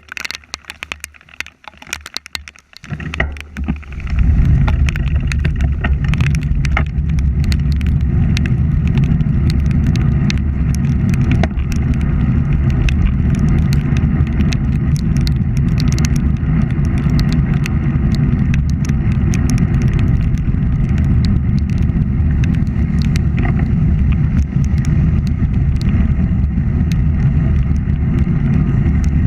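Steady wind rumble on a moving bicycle's camera microphone, with road and tyre noise and many sharp ticks. The rumble comes in about four seconds in, as riding speed picks up, and holds steady after that.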